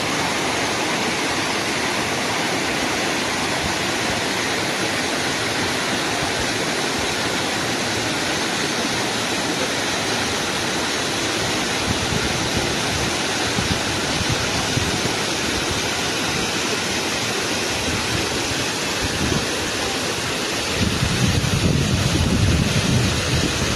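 River water flowing in a steady, even rush. Near the end, wind on the microphone adds a gusty low rumble.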